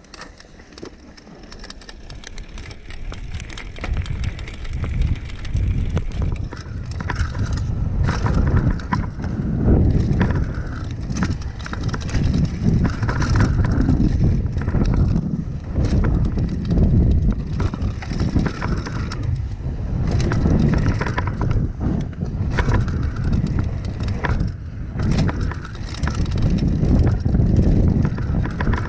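Mountain bike rolling fast down a dirt and gravel trail: tyres crunching over loose stones, the bike rattling and knocking over bumps, with wind rumbling on the microphone. It grows louder over the first several seconds as the bike picks up speed.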